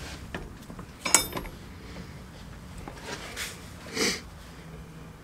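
Metal tools and steel suspension parts being handled: a sharp, ringing metallic clink about a second in, then softer handling noises and a short breathy sniff about four seconds in.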